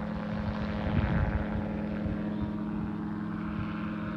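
Gyrocopter's engine and propeller running steadily as it flies away after takeoff, with wind rumbling on the microphone, strongest about a second in.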